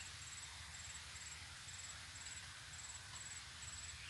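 An insect chirping: short, very high, rapidly pulsed trills repeating about twice a second, over a faint steady outdoor hiss and a low rumble.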